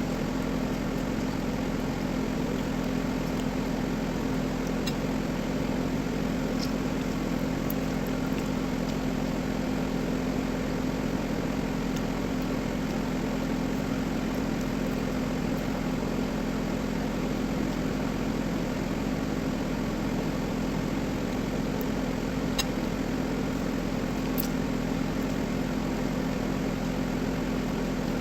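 A steady mechanical hum with a few faint, scattered clicks.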